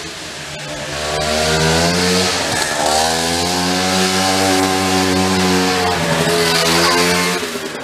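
Small gas golf cart engine running under throttle, its pitch rising about a second in, wavering up and down, then falling away near the end.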